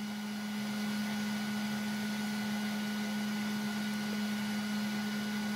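Electric dryer running with a steady hum: a strong low tone with a faint higher whine over a smooth rush of air.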